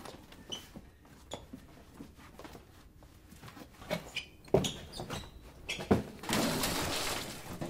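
Scattered footsteps and handling knocks as a heavy cardboard box of bricks is carried out of the room, with one sharp knock about four and a half seconds in and a rush of noise lasting about a second near the end.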